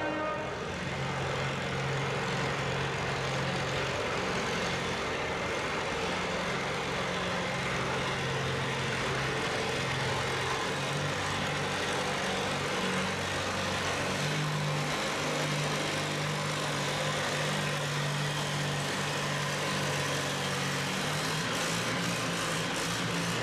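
Antique Farmall tractor's engine running hard and steady under load as it pulls a weight-transfer sled, its note holding nearly level throughout.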